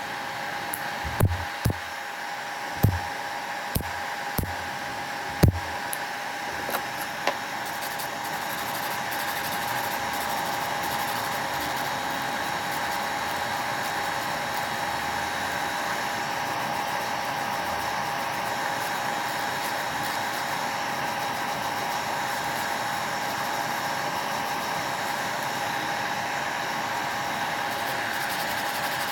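Small electric motor of nail-care equipment whirring steadily with a constant high whine, with a string of sharp taps in the first six seconds or so.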